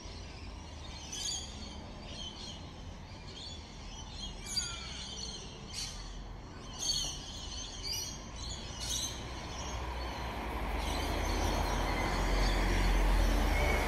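Outdoor street ambience: small birds give short chirps several times, one with a falling whistle, then from about ten seconds in the noise of a vehicle swells as it approaches.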